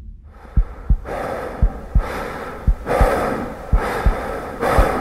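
Heartbeat sound effect: pairs of short low thumps, a double beat about once a second, with a breathing-like rush of noise swelling in and out between the beats.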